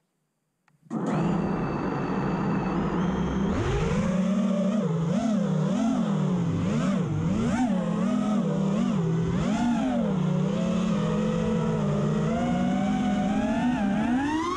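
The four brushless motors (GEPRC GR2306 2450KV) of an FPV freestyle quadcopter, heard through the onboard camera. After near silence, the motors spin up about a second in and hum steadily. From about three and a half seconds their whine swings rapidly up and down in pitch with the throttle, with a sharp climb and drop near the end.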